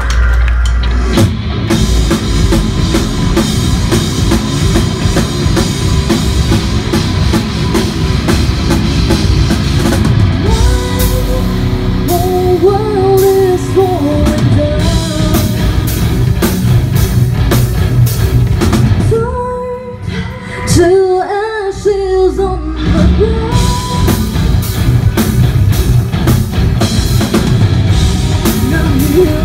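Live heavy metal band playing: distorted guitars, bass and drums under a woman's sung lead vocal. About two-thirds through, the band drops out for a few seconds, leaving the voice almost alone, then comes back in at full volume.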